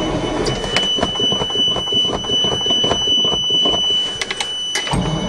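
Starter cranking a cold dump truck engine that will not fire. From about a second in until near the end it is joined by a steady high-pitched tone and rapid, uneven clicking.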